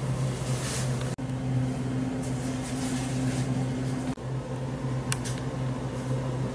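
Steady low machine hum, with soft rustling over it and two brief dropouts where the sound cuts out.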